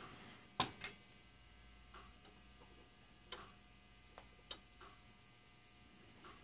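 Faint, scattered small metal clicks and taps as a small turned part and a dial indicator's metal ring are handled and test-fitted together; the loudest pair of clicks comes a little under a second in.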